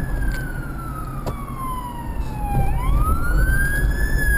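Fire engine siren on a slow wail: the pitch falls for about two and a half seconds, then climbs quickly and starts to fall again, over a low rumble.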